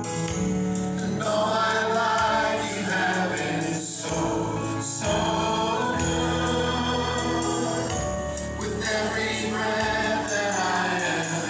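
Contemporary worship song with sung vocals and backing voices over instrumental accompaniment.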